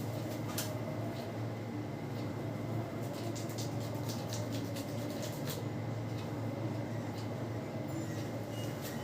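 Hands working over hair and scalp during a head massage, with a run of quick crackling clicks through the middle. A steady low hum lies underneath.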